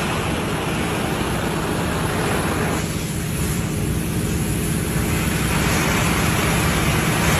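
Oxy-fuel gas cutting torch running with a steady, loud hiss of gas jetting from the nozzle.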